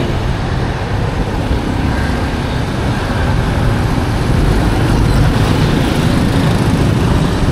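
Street traffic passing close by: pickup trucks and motorbikes driving past, a steady mix of engine and road noise heaviest in the low rumble.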